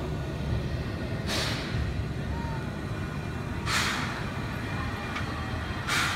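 Small steam switcher locomotive giving three short hisses of steam, about two seconds apart, over a steady low rumble while it turns on a turntable.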